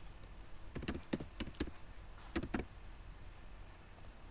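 A few clicks of computer keyboard keystrokes: a quick run of about four about a second in, then two more a little later.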